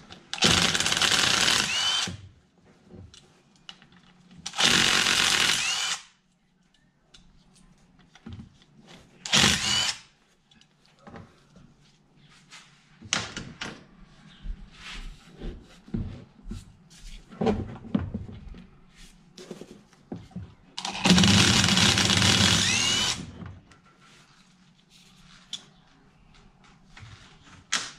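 Cordless drill or driver spinning bolts out of a racing transmission's side cover in four bursts, each with a rising motor whine; the longest and loudest comes near the end. Small metal clicks and clinks of bolts and parts come between the bursts.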